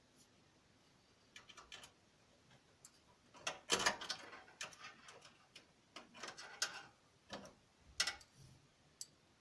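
Irregular clicks, taps and brief rustles of a graphics card box and its packaging being handled, with the busiest, loudest cluster around four seconds in.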